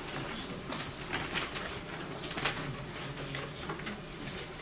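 Soft rustling with a scatter of light clicks and knocks over a low room hum, the sharpest about two and a half seconds in.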